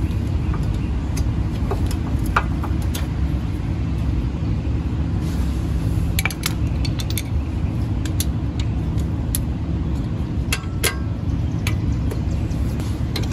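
Scattered light metallic clinks and clicks of tools and bolts as the front strut and suspension parts are worked on by hand, over a steady low rumble.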